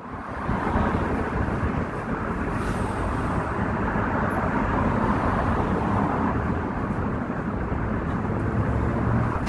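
Steady city street ambience: a constant hum of road traffic with no distinct events.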